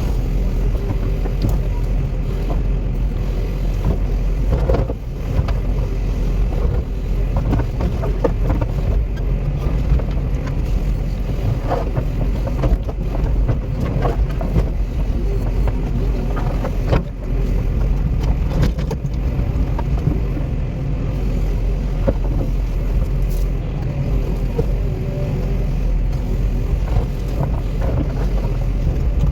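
Cat 316E excavator's diesel engine running steadily under work, with scattered knocks and clanks.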